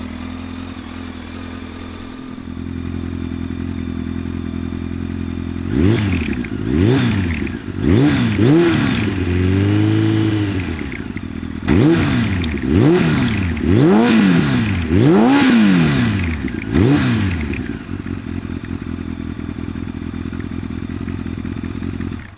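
A Honda CBR1100XX Super Blackbird's inline-four engine idling, then revved in about ten quick throttle blips, one held a little longer, before settling back to idle. It cuts off suddenly at the end.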